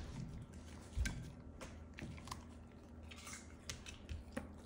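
A dog chewing and biting raw vegetables off a plate, making scattered short crunches and clicks, with a dull thump about a second in.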